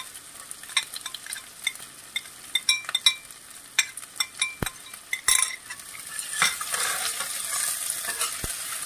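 Chopped onions and green chillies scraped off a glass plate with a steel ladle into hot mustard oil: a run of sharp clicks and taps of the ladle against the plate and pan. From about six seconds in, the oil sizzles steadily as the onions start to fry.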